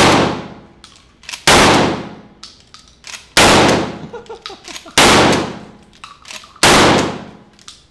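Mossberg Maverick 88 12-gauge pump-action shotgun fired five times, one shot about every one and a half to two seconds, each blast ringing out and dying away in the indoor range. The pump is racked between shots.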